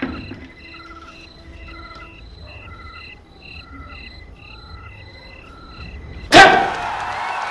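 Crickets chirping in an even, repeating rhythm, about two chirps a second. Near the end a sudden loud burst of noise breaks in and carries on as a steady rush.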